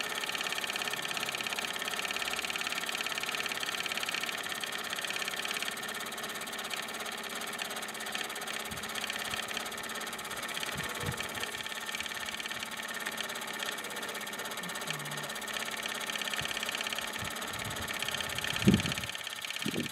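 1929 Meccano toy steam engine running at speed with a rapid, even beat, driving a Mamod WS1 workshop's line shafting through string belts. A brief low thump near the end.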